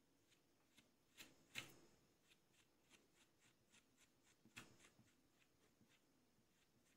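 Near silence, broken by faint light clicks and scrapes of a metal palette knife on a plastic palette as it scoops up and spreads decorative plaster, the clearest tick about a second and a half in.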